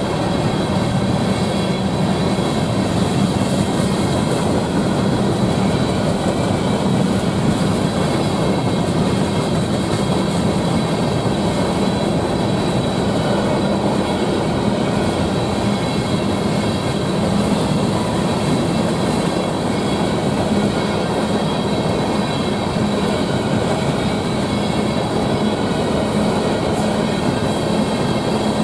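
Freight train of covered hopper cars rolling steadily through a grade crossing, with the continuous rumble and rattle of the wheels on the rails. The crossing bell rings steadily over it.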